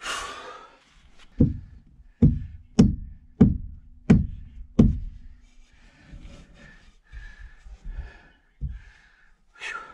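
Six hard knocks about two-thirds of a second apart: an overhead fibreglass cabin panel struck by hand to force it into its opening, with a faint ring after each blow. A strained exhale comes just before them and heavy breathing and shuffling follow.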